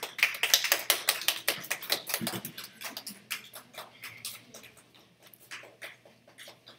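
Audience applauding: many quick claps, loudest at first, then thinning out and dying away over a few seconds.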